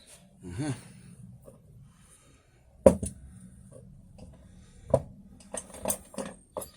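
Metal hand tools clinking and knocking as they are handled and set down on a bench: a sharp knock about three seconds in, another about five seconds in, then a quick run of clinks near the end.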